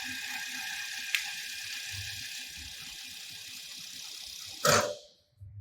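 Industrial sewing machine driven by a Kindyne 750S servo motor, running steadily at normal sewing speed with a steady motor whine and a rapid stitching rhythm. Near the end there is a short loud knock, and then the machine stops.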